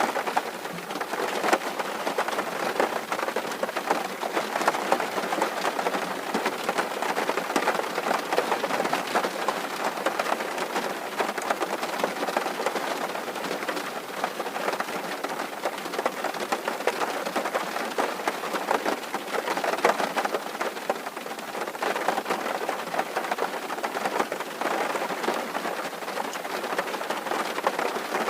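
Steady heavy rain drumming on a tin roof: a dense, even patter of many drop impacts with no pauses.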